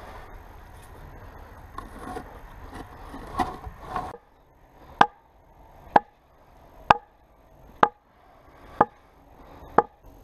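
A hatchet striking logs: a few light knocks and rustling, then six sharp, evenly spaced blows about a second apart, each with a short hollow ring, as logs are pounded into place in a log box trap.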